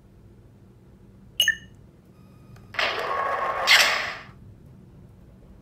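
Lightsaber sound board playing effects through its small speaker: a short electronic chime about one and a half seconds in, then a hissing effect sound lasting about a second and a half.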